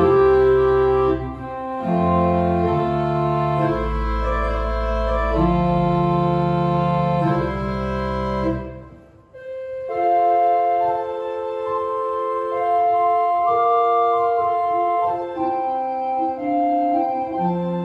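Small cabinet pipe organ playing slow sustained chords over a low bass line. Near the middle the music breaks off briefly, then sustained notes in a higher register go on without the bass.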